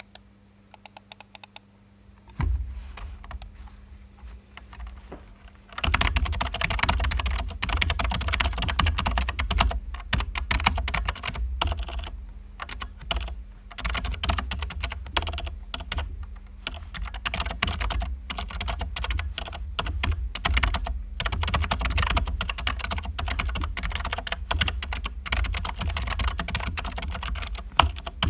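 Keychron K3 low-profile mechanical keyboard with clicky blue optical switches being typed on while it sits on a desk pad: a few scattered key clicks at first, then steady, fast typing from about six seconds in.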